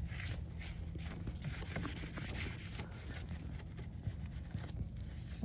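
Cloth rag rubbing over a car's metal front bumper in repeated soft wiping strokes, over a low steady background rumble.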